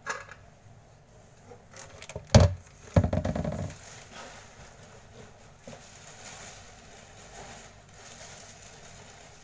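A sharp knock followed by a short clattering ring as an aluminium pressure-cooker lid is set down, then faint rustling of cardboard and packing as hands rummage in a box.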